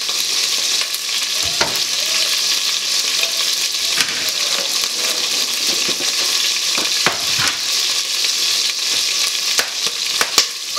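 Steady sizzle of chicken frying in a pan, with a few sharp taps scattered through it as a carrot is peeled and cut on a board.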